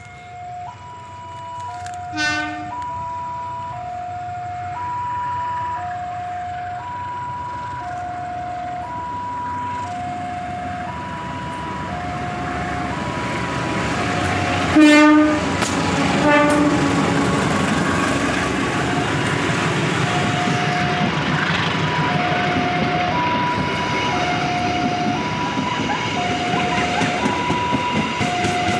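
A level-crossing alarm chimes in two alternating tones throughout as a KAI diesel locomotive approaches and passes hauling passenger coaches. The locomotive sounds its horn briefly about two seconds in, then gives a loud blast about fifteen seconds in with a shorter one just after. The engine and the wheels rolling on the rails grow louder and hold steady as the coaches go by.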